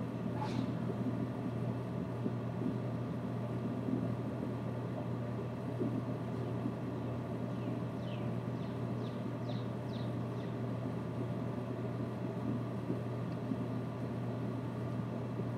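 Steady outdoor background noise with a constant low hum. Faint high bird chirps sound once near the start, then in a quick run of about six over a few seconds, starting around eight seconds in.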